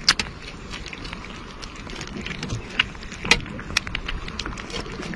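Cats chewing and eating meat chunks from a metal dish up close, an irregular run of wet smacks and sharp clicks, a few of them louder.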